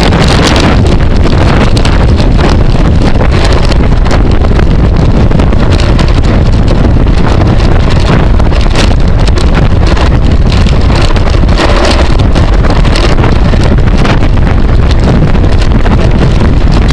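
Loud, steady wind buffeting on a camera microphone carried at racing speed in a bicycle criterium, with scattered brief knocks.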